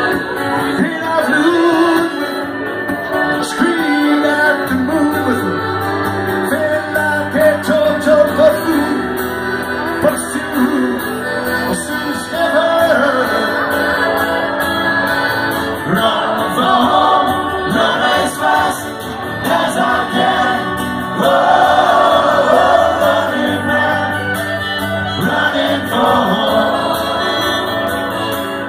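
Live folk band playing a song: a man singing over accordion, fiddle and acoustic guitar, amplified through a PA.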